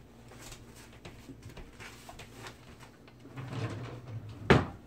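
Soft off-camera handling and rustling as a printed periodic table sheet is fetched, with one sharp knock near the end.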